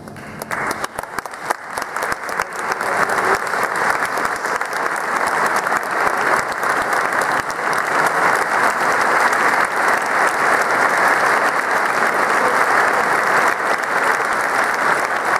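Audience applauding, breaking out right after the music ends and swelling over the first few seconds into steady clapping.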